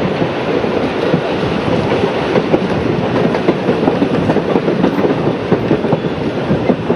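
Running noise of a Queensland narrow-gauge heritage passenger carriage heard from on board at an open window: a steady, loud rumble of wheels on rail with dense, irregular clicking and rattling.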